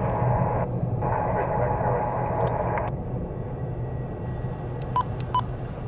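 Freight train cars rolling across a steel bridge: a steady low rumble with wheel noise, the upper part of which fades about three seconds in. Two short high chirps near the end.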